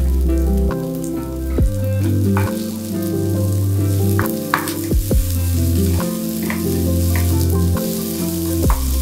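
Yellow curry paste and sliced onion sizzling in oil in a small nonstick pan, stirred with a wooden spatula that knocks against the pan now and then. Background music with a bass line plays under it.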